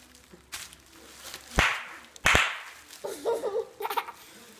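Bubble wrap bubbles popping under a baby's hands and knees: a few small clicks and two loud pops in the middle. A baby's short giggle follows near the end.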